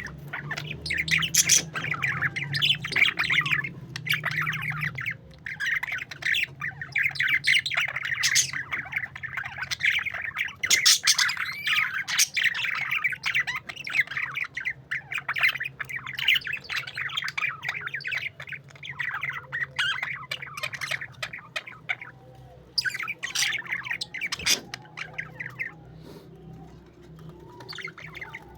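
A group of parakeets chattering, with squawks and chirps. The busy calling thins out over the last few seconds.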